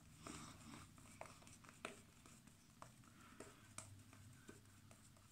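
Faint soft swishing and scattered little clicks of a synthetic shaving brush working thick lather over the face.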